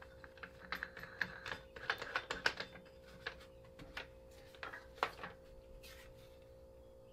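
Light, irregular clicks and taps of a DeWalt angle grinder being handled while its disc is changed: metal flange, disc and tool knocking lightly together, thinning out after about five seconds. A faint steady hum lies underneath.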